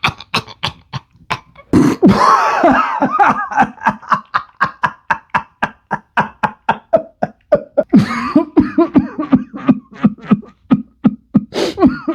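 A person coughing in an exaggerated, rhythmic way, like beatboxing: a fast, even string of short coughs, about five a second. Two longer, voiced coughing fits break the string, about two seconds in and again near eight seconds.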